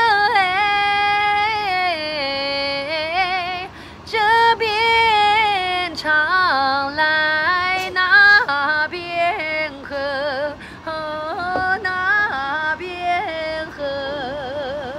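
A woman singing a Guangxi shan'ge (mountain folk song) solo in a high voice, with long held notes and quick wavering ornaments between short breaths.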